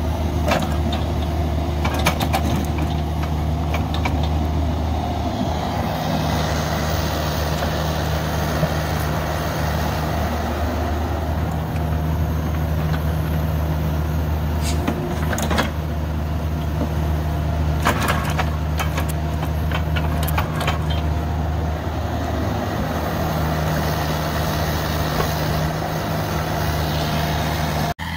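Diesel engine of a Cat 305.5 mini excavator running steadily under hydraulic load while it digs and grades dirt, with a few sharp knocks from the bucket and linkage.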